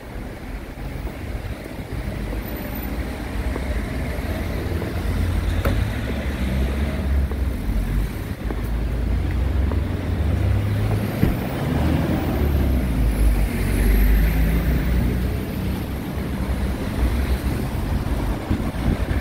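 Cars and vans driving past on a wet road, engine rumble mixed with tyre noise on the wet surface, growing louder over the first few seconds and staying strong through the middle.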